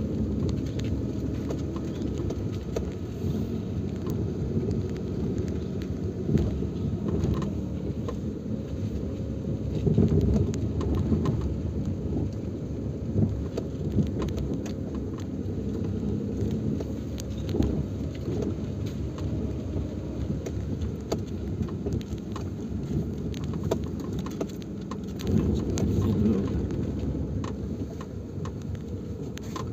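Small car driving over a rough, bumpy dirt track, heard from inside the cabin: a steady low rumble of engine and tyres with scattered knocks and rattles from the bumps. It swells louder about ten seconds in and again a few seconds before the end.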